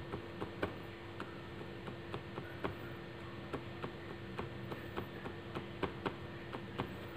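Light, irregular clicks and taps as fingers press balls of yeast donut dough flat onto cardboard donut boards in a plastic tray, over a faint steady hum.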